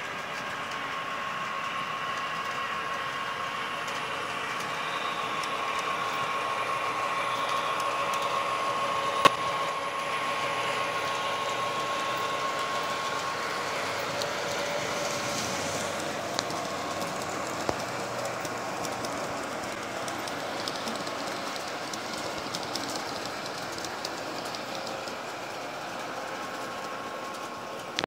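Model trains running on O and G gauge track: a steady whir of electric motors and metal wheels on the rails, with a high steady hum. There is a sharp click about nine seconds in and two fainter ones later.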